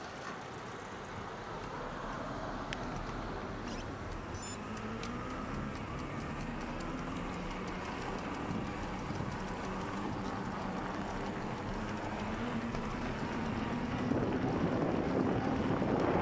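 Bicycle on the move over asphalt: wind rushing over the microphone and tyre noise, with a faint hum that slowly rises in pitch. The wind noise grows louder about two seconds before the end.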